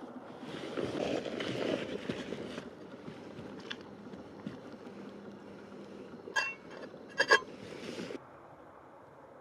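Crisp rustling and snapping of bok choy stalks being handled and dropped into a pot of hot water. Then two ringing metallic clinks as the stainless steel lid is set on the cooking pot, over a steady hiss from the camp stove burner.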